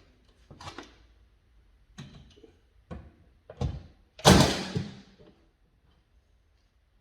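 A few separate knocks and thuds, the loudest a heavy thud about four seconds in that dies away over about a second.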